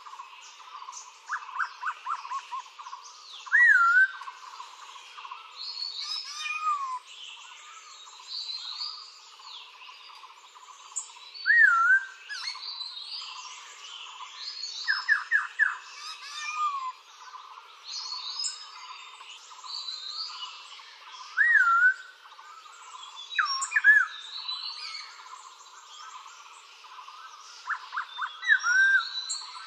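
Recorded birdsong from a sound archive: several birds calling and singing together. A loud whistled call that swoops up and then down comes five times, alongside bursts of quick falling notes and fainter high chattering.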